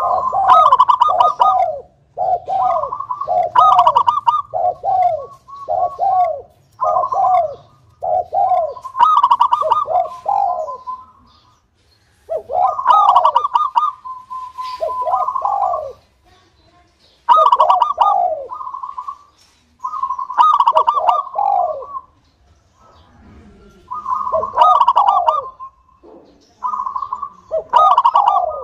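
Zebra dove (local perkutut) singing: repeated phrases of rolling, trilled coos, each a second or two long, with short pauses between them.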